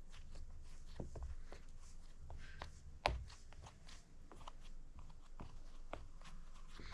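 Silicone pop-it fidget toy having its bubbles pressed in one after another: a string of irregular small pops, with one louder pop about three seconds in.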